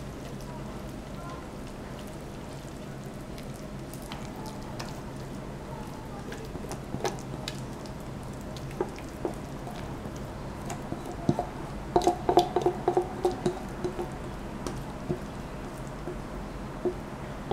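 A silicone spatula spreading and pressing a wet tofu-and-seafood mixture into a parchment-lined tin: soft squishing with scattered taps, and a quick run of sharper clicks about twelve seconds in. A steady low hum runs underneath.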